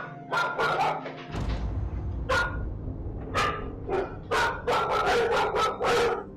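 Pet dogs barking in a rapid, agitated run of about a dozen sharp barks, as though spooked. A low rumble sits under the barking from about a second and a half in.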